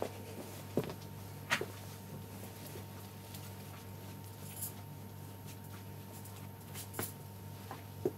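Cloth sheets being handled and folded by hand: soft fabric rustles with a few short light taps, about a second in, half a second later, and twice near the end, over a steady low electrical hum.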